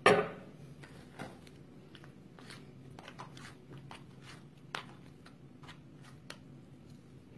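Kitchen handling sounds: one sharp knock at the start, then a few faint, irregular clicks and light rustling as utensils and containers are handled while seasoning the meat filling.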